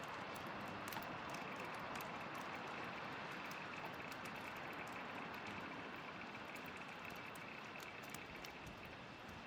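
Wood campfire burning: a steady hiss with sparse, irregular crackles and pops.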